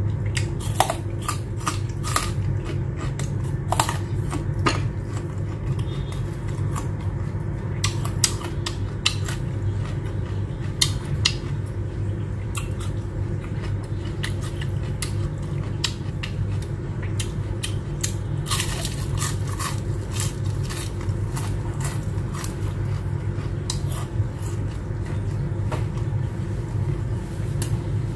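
Close-up chewing: loud, irregular crunches of a raw carrot stick and of fried shrimp eaten with the shells on, over a steady low hum.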